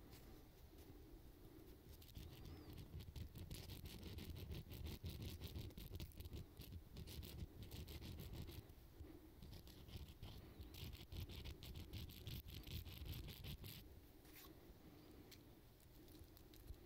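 Small hand file rasping against the hook of a metal fishing lure to sharpen it, in many quick short strokes. The filing starts about two seconds in and stops a couple of seconds before the end, leaving only faint handling sounds.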